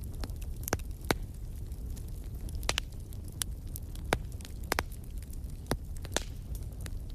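Wood fire crackling in a fireplace: a steady low rumble of flames with irregular sharp pops and snaps, a few of them louder than the rest.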